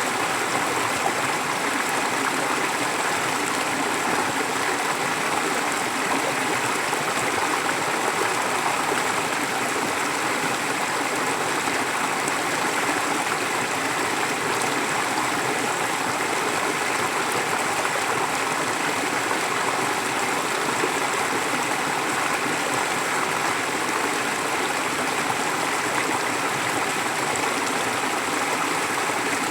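A forest stream flowing steadily: continuous rushing and babbling of running water.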